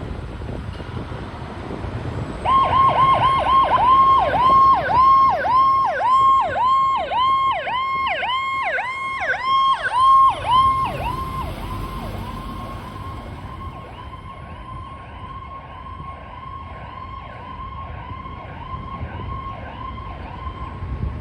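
Fire truck's electronic siren in a fast yelp, each cycle a quick sweep from high to low, about two a second, over engine and road rumble. It starts a couple of seconds in, is loudest for the next several seconds, then carries on fainter as the truck moves away.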